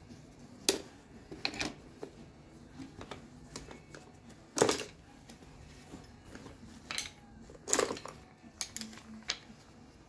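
Metal hand tools, mostly screwdrivers, clinking and clattering against each other in an open tool bag as a gloved hand rummages through it and pulls a bunch of them out. The clinks come singly and at irregular intervals, about seven of them, with a few louder clatters.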